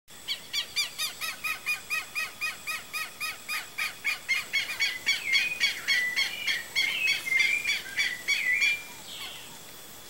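Bird calling: a loud series of evenly repeated notes, about four a second, which grows faster and more tangled in the second half and stops abruptly about nine seconds in. A faint, steady high insect whine lies underneath.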